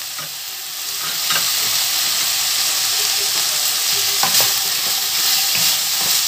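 Pork belly and freshly added chopped onion sizzling in hot oil in a wok, stirred with a wooden spatula that knocks and scrapes against the pan now and then.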